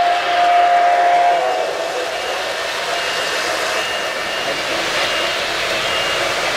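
O-gauge model train whistle blowing a steady chord that stops about a second and a half in, over the continuous rumble and clatter of model trains running on metal track.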